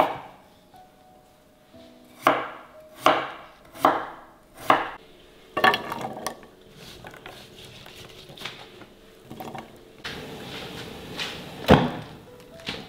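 Kitchen knife chopping potato on a wooden cutting board: about six sharp chops, roughly one every second, in the first half. Near the end a hiss and a loud sharp click as a gas hob burner is lit.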